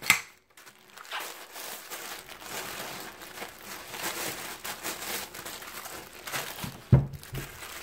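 Packaging crinkling and rustling as it is handled, with a sharp knock right at the start and a heavier low thump near the end.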